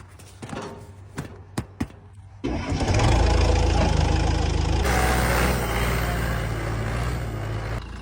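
A few sharp clicks, then a tractor engine starts about two and a half seconds in and runs loud and steady.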